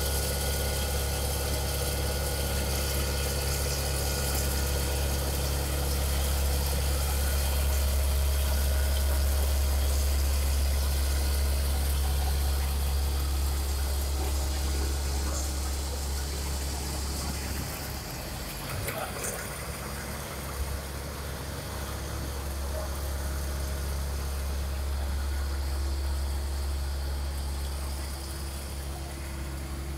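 Diesel engine of a road-surfacing truck running steadily, a deep even hum, quieter from a little past halfway as the machine is further off.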